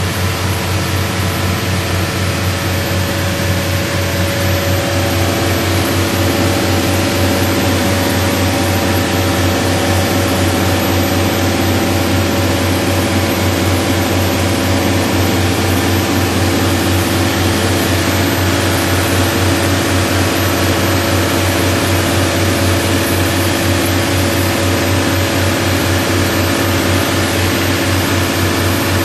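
Boat's inboard diesel engines, the Volvo Penta TAMD74EDC, running steadily, heard loud and close from the open engine room with a deep, even drone.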